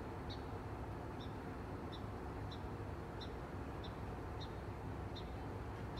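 Outdoor background noise: a steady low rumble with a short, high chirp repeating about every two-thirds of a second.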